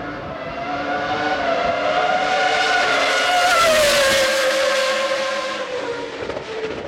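A racing car's engine at high revs passes at speed down the straight. It grows louder, peaks about halfway through as it goes by, drops in pitch as it passes, and then fades.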